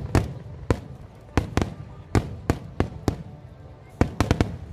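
Aerial fireworks bursting: about a dozen sharp bangs at irregular spacing, bunched several to the second near the end, over a steady low rumble.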